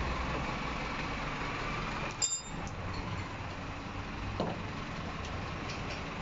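Steady background noise with one sharp metallic clink about two seconds in, ringing briefly at a high pitch: a steel tool or bolt striking the steel wheel brackets being fitted to the crated machine.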